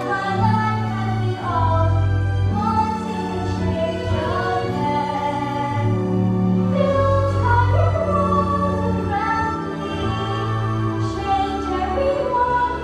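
A girl singing a solo song with long held notes over instrumental accompaniment.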